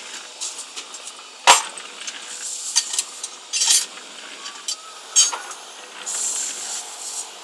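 Metal clanking and clinking: one loud clank about one and a half seconds in, then several lighter clinks and a short rattle, with a brief hiss near the end.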